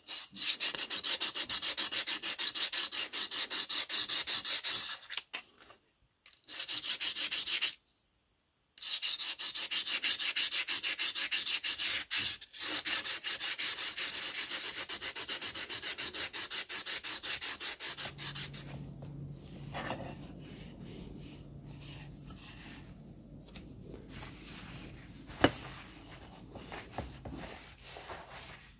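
Wet sanding of a kerosene stove's red-painted steel part with an abrasive sanding sponge: fast back-and-forth scraping strokes that break off briefly twice. About two-thirds of the way in it gives way to quieter rubbing with a single sharp click.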